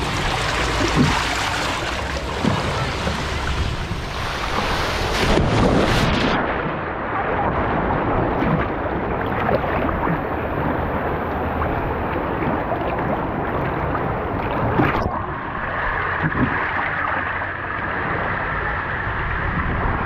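Water slides gushing and splashing, a steady rush of water noise. The sound turns muffled about six seconds in and clears again around fifteen seconds.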